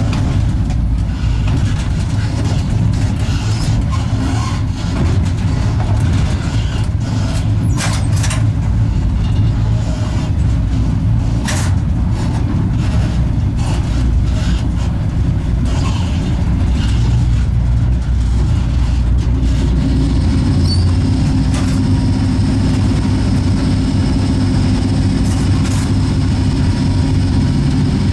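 East German-built EL2 electric locomotive heard from its cab while running slowly: a steady, loud low rumble, with scattered sharp clicks and knocks. About two-thirds of the way through, a steady hum and a high whine set in and hold.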